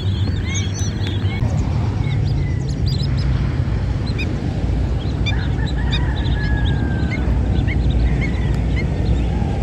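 A large flock of birds calling in flight: many short, high calls, dense in the first second or so and then scattered, with one longer drawn-out call about two thirds of the way through. Under the calls runs a steady low rumble.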